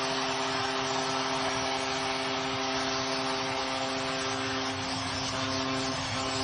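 Arena goal horn sounding a steady chord over a loud cheering crowd, signalling a home-team goal.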